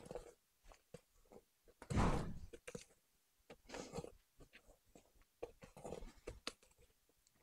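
Spatula pressing and scraping macaron batter against the sides of a stainless steel mixing bowl in irregular strokes, the loudest about two seconds in. It is the press-in folding stage of macaronage, deflating the batter.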